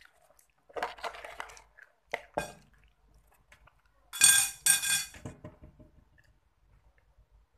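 Cutlery clinking and scraping against a dish while eating: a scrape about a second in, a sharp knock, then two loud ringing chinks about four seconds in, followed by softer small sounds.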